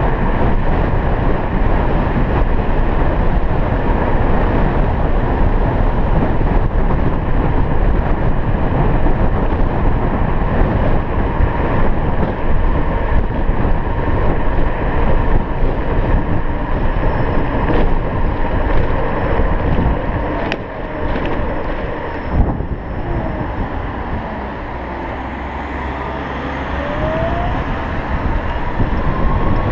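Electric scooter riding at speed: steady wind rush on the microphone and tyre noise on the road. About twenty seconds in it slows and the noise drops, with a few sharp clicks. Near the end a faint whine rises in pitch as it speeds up again.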